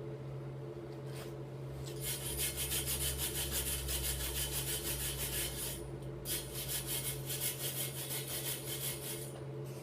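A hand tool worked back and forth over metal in quick, even rasping strokes, about five a second, pausing briefly midway and stopping near the end. A steady low hum runs underneath.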